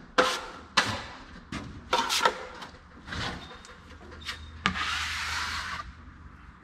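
Drywall taping knife scraping over joint compound and paper tape on a drywall seam: a series of short, sharp strokes, then one longer wipe about five seconds in.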